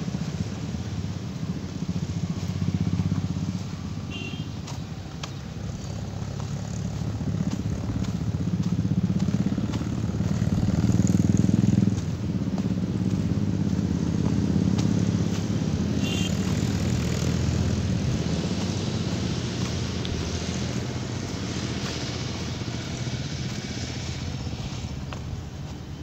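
Low engine rumble of a motor vehicle. It swells to its loudest about twelve seconds in, drops suddenly, then slowly eases off.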